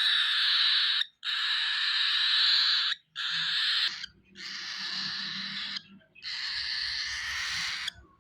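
Baby cockatiel giving harsh, raspy food-begging calls: about five long hissing screeches, each one to two seconds, with short breaks between them.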